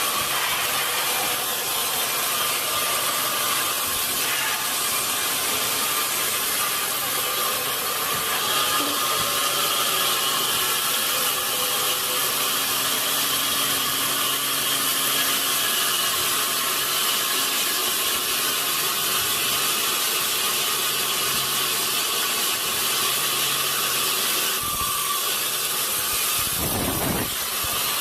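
Sawmill saw cutting steadily through a large redwood log, a loud, continuous grinding noise of blade in wood, with a brief change in the sound near the end.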